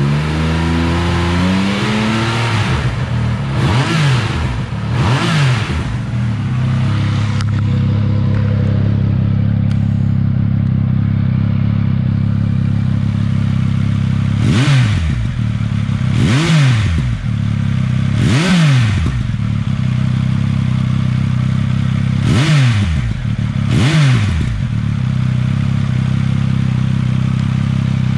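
Triumph Speed Triple 1200 RS inline-three engine, breathing through an aftermarket SC Project CRT muffler, dropping from a held rev to idle at the start. It then idles with seven quick throttle blips, each rising and falling in pitch: two early on, three in quick succession past the middle, and two more later.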